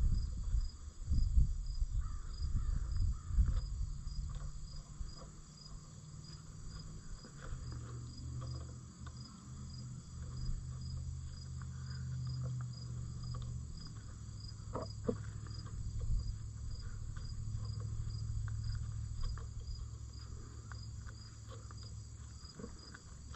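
Crickets chirping steadily in a fast, even pulse. A few knocks and clunks of handling come in the first few seconds, and a low steady hum follows.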